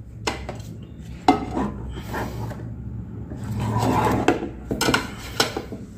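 A plastic mixing bowl being lifted off and set back on a digital kitchen scale: several sharp knocks of plastic against the scale and tabletop, the loudest about a second in, with rubbing and shuffling in between.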